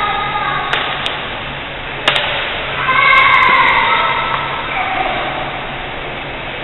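Badminton rally: sharp racket strikes on the shuttlecock, two close together about a second in and another near two seconds, followed by a loud, drawn-out high-pitched sound lasting about a second, then fading.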